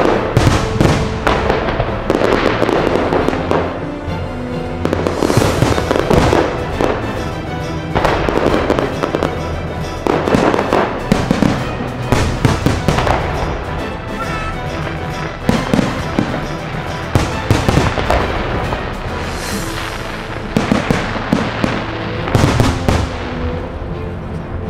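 A fireworks display with shells bursting in quick succession throughout, sharp bangs followed by crackle, over music with long held notes.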